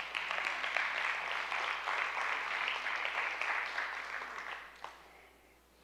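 Congregation applauding, a dense patter of many hands clapping that tapers off and fades out about five seconds in.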